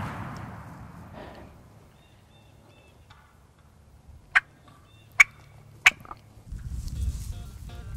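Echo of a shotgun blast dying away, then three short, sharp putts from a wild turkey, under a second apart, a turkey's alarm call. Guitar music fades in near the end.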